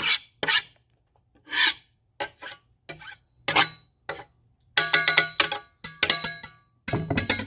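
About a dozen short rasping scrapes of a kitchen utensil working through chopped vegetables. The strokes about five to seven seconds in ring with a metallic tone.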